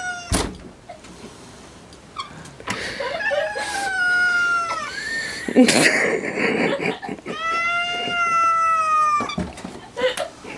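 A cat yowling at a stranger outside the glass door, several long, drawn-out wails, some falling in pitch, the longest about two seconds near the end. A sharp knock sounds about halfway through.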